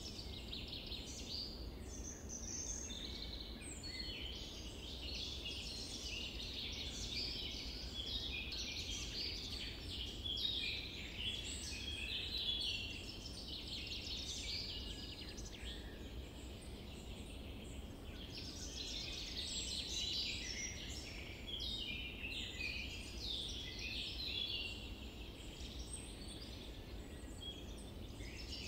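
A dense chorus of many small birds chirping at once, rising and falling in density, over a low steady rumble of outdoor ambience.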